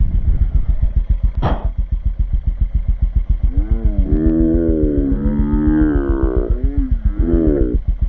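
Kawasaki Z125's 125 cc single-cylinder four-stroke engine idling, a steady rapid thud of firing pulses. About a second and a half in there is a brief high squeak, and from about four seconds in a long, wavering, moo-like vocal call lasts for about three and a half seconds over the idle.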